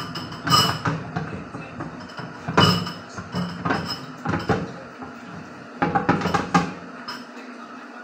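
Washing up by hand in a stainless steel sink: a black pan is scrubbed under water, with irregular clatters and knocks as it hits the sink, and a cluster of knocks about six seconds in.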